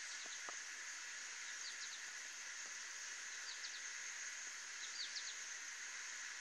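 Faint outdoor ambience: a steady hiss with a small bird chirping three times, each a quick cluster of two or three high notes about a second and a half apart.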